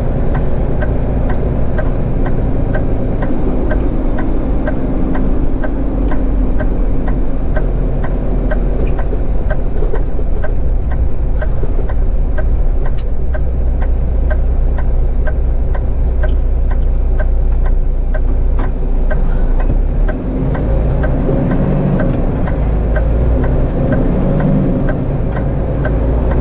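Peterbilt 389 semi truck's diesel engine running, heard from inside the cab, with a turn signal ticking steadily about one and a half times a second. About twenty seconds in the engine drops off briefly, then pulls again.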